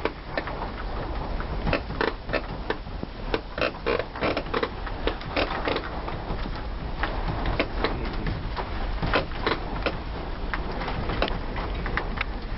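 Wooden house creaking and rattling as it shakes in an earthquake: rapid, irregular knocks and clicks throughout.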